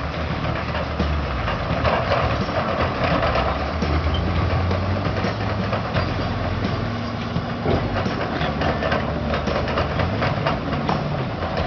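A JCB backhoe loader's diesel engine running steadily, with frequent short metallic clanks and rattles over the engine note.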